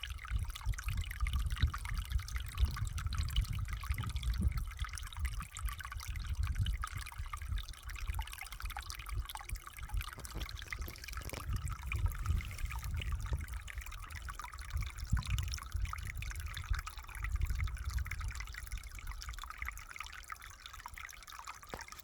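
Water trickling and dribbling steadily, with many small drips and splashes and a low rumble underneath that swells and fades.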